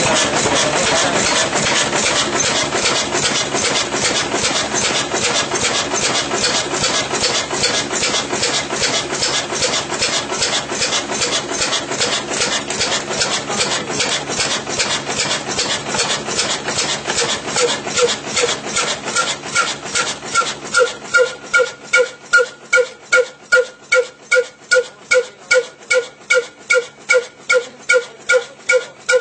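Old single-cylinder diesel engine running, its exhaust puffing in an even rhythm of about four beats a second. From about two-thirds through, the beats slow to two or three a second and stand out more sharply, each with a short ringing note.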